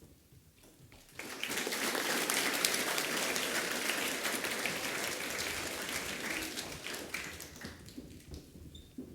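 A hall full of school students clapping. The applause breaks out about a second in, holds steady, then dies away near the end.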